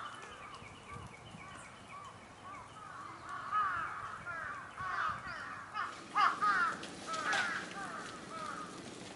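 Birds calling outdoors: a run of short, arched calls that starts out sparse and becomes dense and overlapping in the middle, with several birds calling at once.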